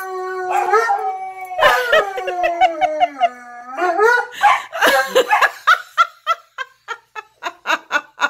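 An Alaskan malamute and a Siberian husky howling together in long, drawn-out howls that slide down in pitch, breaking into shorter yips and woo-woo calls. About six seconds in the howling stops and gives way to a quick run of short, evenly spaced bursts of laughter.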